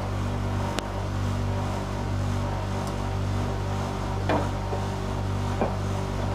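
Domestic laundry machine running: a steady motor hum, with three short clicks or knocks from the drum.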